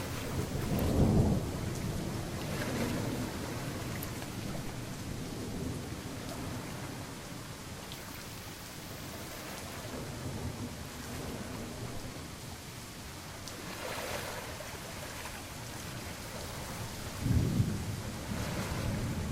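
Steady rain with rolling thunder: two louder low rumbles of thunder, one about a second in and one near the end, over a constant hiss of rainfall.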